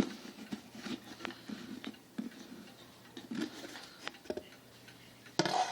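Handling sounds from a wooden mantel chime clock case: scattered light clicks and knocks at irregular intervals, with a louder rustle near the end.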